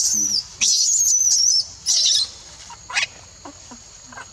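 Baby macaque screaming in distress while its mother pins it down by the head. It gives a run of high, wavering squeals: the longest lasts about a second, followed by shorter ones.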